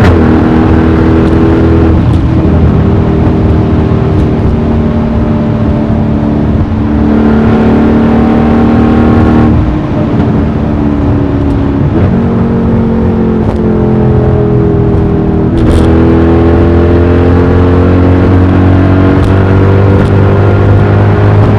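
Mercedes-AMG E63's V8 with a loud exhaust, driven on the road: engine note rising and falling with several gear changes, and a brief crackle from the exhaust a little past halfway.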